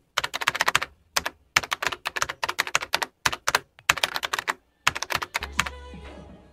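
Computer keyboard typing sound effect: rapid runs of key clicks in several bursts with short pauses, stopping a little over five seconds in, followed by a low steady hum of room tone.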